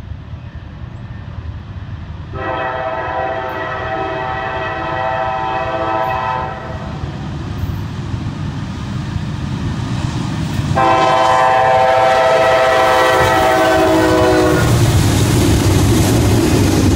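A Norfolk Southern diesel locomotive's air horn sounds two long chime blasts as the train approaches, the second dropping slightly in pitch at its end. The rumble of the diesel engines and wheels grows, and near the end the lead locomotives pass close by with a loud engine and wheel noise.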